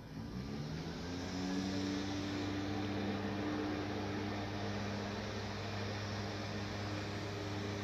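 Steady machine hum over a hiss from a motor or fan running up to speed. Its pitch rises over about the first second and a half, then holds steady.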